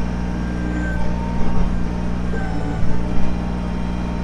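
Kubota BX23S compact tractor-backhoe's three-cylinder diesel engine running steadily, with a few brief louder sounds about a second in and again around three seconds in.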